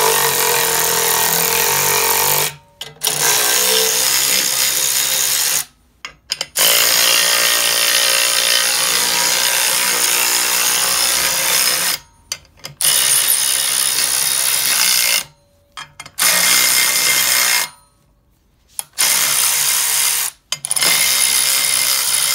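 Power ratchet spinning M8 bolts into the threaded holes of a rusted-on rear brake drum, jacking the drum off its hub. The tool runs in about seven separate bursts of one to five seconds, with short pauses between them.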